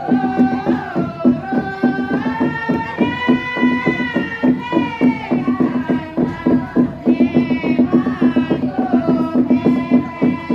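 Pa'katia dance chant: a melodious sung line, held and gliding through long notes, over a steady low drone and a quick, even rhythmic pulse.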